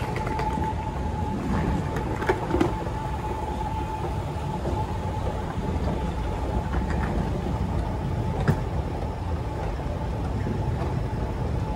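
Escalator running under a rider, a steady low rumble with a faint steady hum, over the wash of a large terminal hall. A couple of light knocks come about two seconds in and another about eight and a half seconds in.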